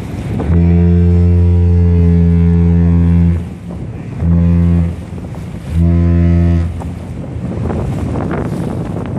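Ship's horn of the self-unloading lake freighter Capt. Henry Jackman, low-pitched and loud: one long blast of about three seconds, then two short blasts. Wind buffets the microphone and water rushes between blasts.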